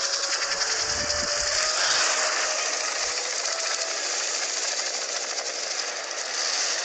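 Cartoon helicopter rotors chopping rapidly and steadily, played backwards, with a faint engine whine underneath.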